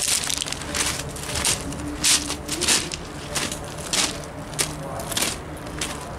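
Footsteps crunching on loose gravel at a steady walking pace, a little under two steps a second.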